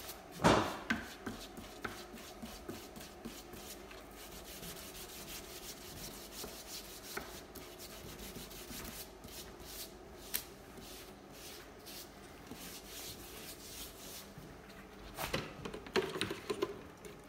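Hand scrub brush scrubbing the wet, weathered timber of a bench seat in quick back-and-forth strokes, bringing out the grain. A sharp knock sounds about half a second in, and there are louder knocks and handling noises near the end.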